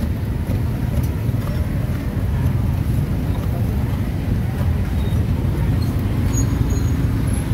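Steady low rumble of street traffic, with a few light knocks of a cleaver slicing grilled sausage against a wooden chopping board.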